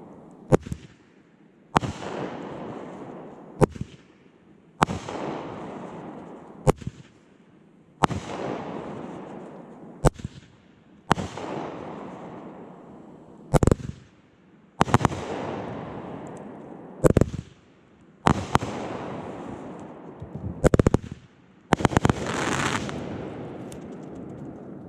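Consumer aerial fireworks firing in succession a few feet away: about a dozen sharp shots, one every second or two, each trailing off in a fading hiss. Near the end comes a longer, brighter burst.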